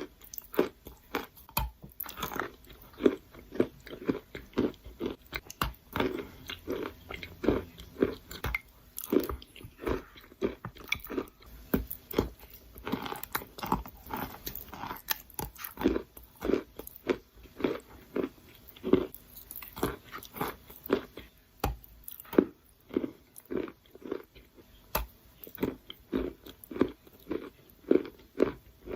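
Wet, sandy, grainy material being crunched and crumbled, a steady run of short gritty crunches at roughly two a second.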